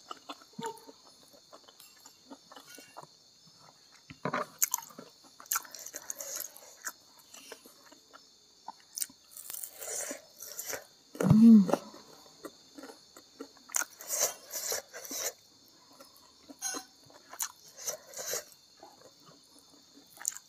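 Close-up chewing and crunching of crispy fried food eaten by hand, with scattered crackly bites and mouth sounds. About eleven seconds in there is a short vocal sound, the loudest moment.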